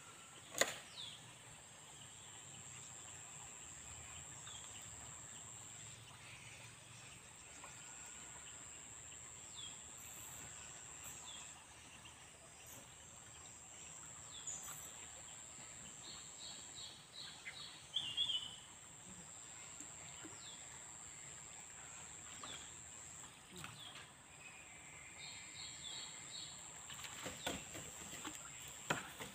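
Riverbank ambience: a steady high-pitched insect drone over soft background noise. Quick runs of bird chirps come about 16 seconds in and again about 26 seconds in, and a few sharp clicks sound, the loudest just under a second in.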